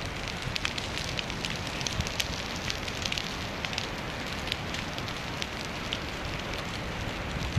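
Forest ground fire burning through dry undergrowth and fallen branches: a steady hiss of flames with many sharp crackles and pops scattered through it.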